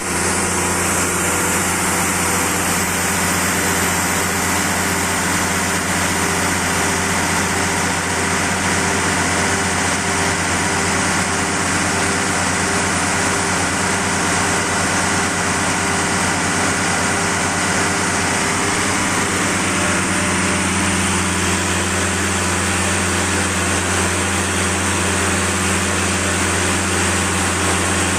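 Air compressor rig running steadily while flushing a borewell: a continuous engine drone under a loud rushing hiss. The engine note shifts slightly about two-thirds of the way through.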